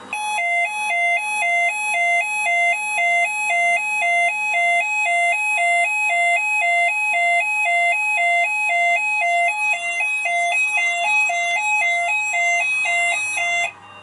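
Fire alarm sounder of an addressable fire alarm system, set off by testing a smoke detector, sounding a loud alternating two-tone alarm that switches rapidly between a higher and a lower pitch. It cuts off abruptly shortly before the end.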